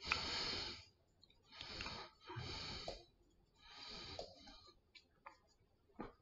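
A man breathing heavily, about four audible breaths a second or so apart, followed by a couple of faint clicks near the end.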